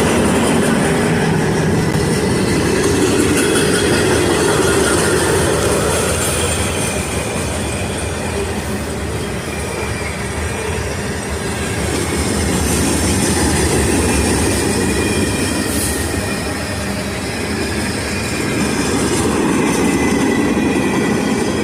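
A train going by: a steady rumble and clatter of its wheels on the rails, with a thin squeal from the wheels at times.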